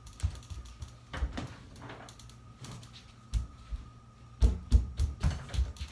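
Scattered knocks and clicks, with a quick run of heavier thumps in the last second and a half.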